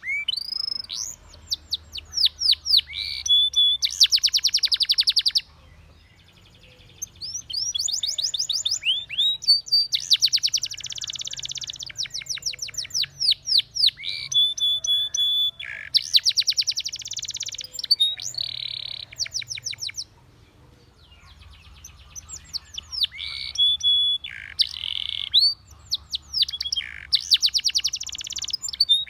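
Spanish Timbrado canary singing in phrases of fast, high trills and rolls of rapidly repeated notes. The song breaks off briefly about six seconds in and again about twenty seconds in.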